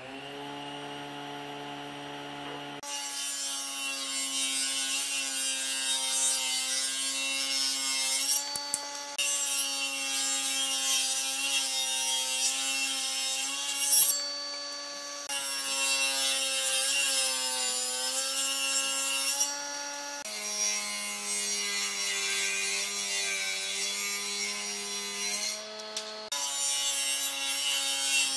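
Table saw running steadily, then ripping solid wood lengthwise: a loud hiss of the blade cutting over the motor's steady whine. The cut breaks off briefly about four times between passes.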